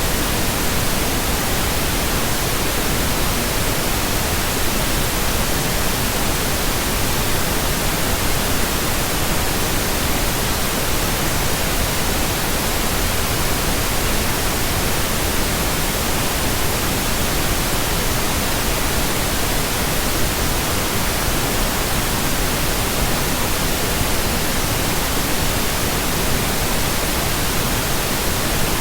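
Steady, unbroken pink noise: an even hiss across the whole range with no tones, pulses or changes in level.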